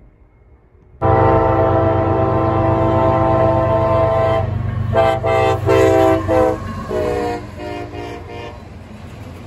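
Diesel freight locomotive's air horn: one long blast of about three and a half seconds, then a run of shorter blasts, over the steady low rumble of the passing train. It starts suddenly about a second in.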